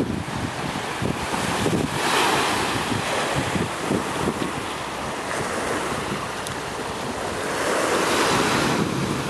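Small waves washing onto a sandy, rocky shore, with wind buffeting the microphone. The wash swells louder twice, about two seconds in and again near the end.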